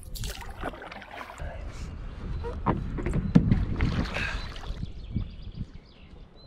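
Paddle strokes splashing and water sloshing against an inflatable stand-up paddle board, with several knocks and bumps on the board about halfway through as it is handled at the water's edge.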